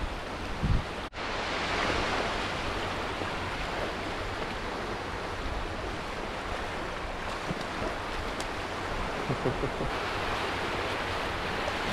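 Small waves of shallow surf washing onto a flat sandy beach at low tide: a steady rushing wash, with a brief drop-out about a second in.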